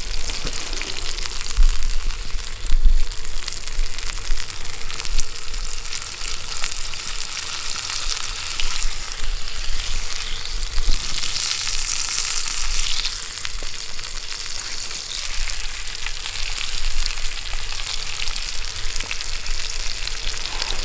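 A salmon fillet sizzling skin side down in hot olive oil in a carbon steel skillet over campfire coals: a steady dense crackle that swells for a couple of seconds about halfway through.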